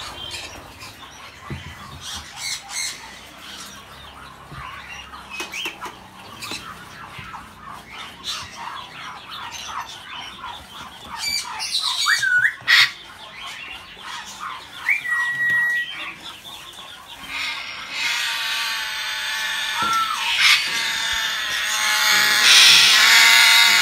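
African grey parrots squawking, with short whistled calls, one of them a level whistle, around the middle. Scratching and knocking sounds run throughout. Harsher, louder calling fills the last few seconds.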